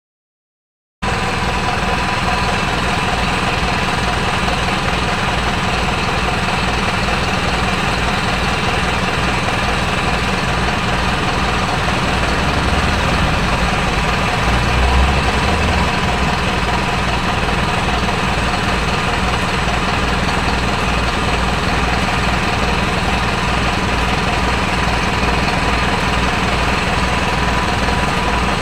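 Diesel bus engine idling: a steady low rapid knocking pulse with a constant whine above it, starting suddenly about a second in.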